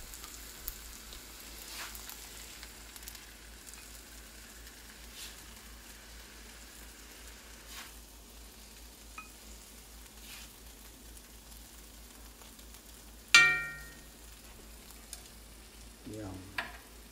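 Fried rice sizzling faintly in a hot wok while a spatula scoops it out, with scattered light scrapes and clicks. About thirteen seconds in comes one loud ringing clank.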